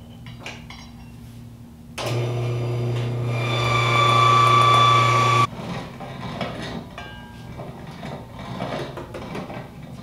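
An electric mill's motor runs steadily for about three and a half seconds, starting about two seconds in, growing louder and then cutting off abruptly. Around it, a hand-cranked metal grain mill grinds dried corn with irregular scraping and clicking.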